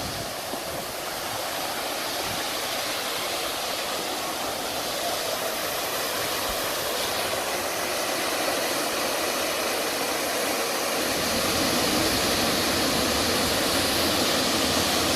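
Waterfall: a steady rush of falling water, growing gradually louder toward the end.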